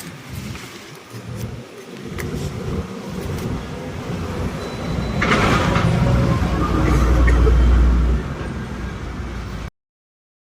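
Heavy-duty jute bag stitching machine running, its motor drone building up, loudest for a couple of seconds, then easing off.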